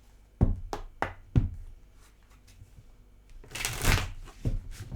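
A deck of tarot cards being handled on a table: a few sharp knocks in the first second and a half, a brief shuffling rush just before four seconds in, then two more knocks.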